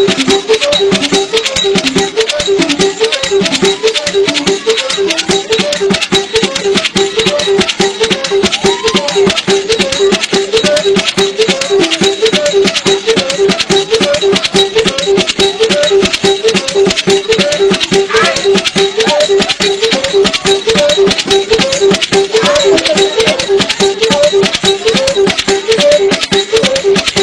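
Kinyarombo ngoma music: drums keep a steady, fast, unbroken beat while rattles shake continuously over it.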